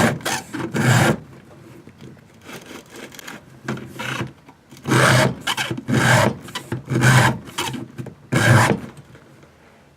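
Chainsaw file rasping across the cutter teeth of a saw chain held in a bar-mounted filing jig, one push stroke about every second. The strokes are loud at the start and in the second half, fainter in between. This is hand-sharpening, three or four file passes per tooth.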